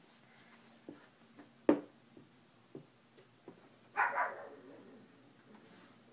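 A few light clicks and one sharp knock, then a single loud bark about four seconds in.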